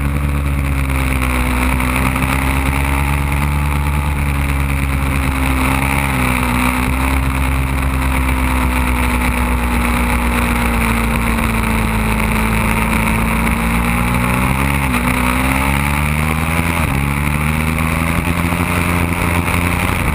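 Ducati Panigale motorcycle engine running at track speed, heard through a camera mounted on the bike. The engine note holds fairly steady, with slow rises and falls and two brief dips in pitch in the second half.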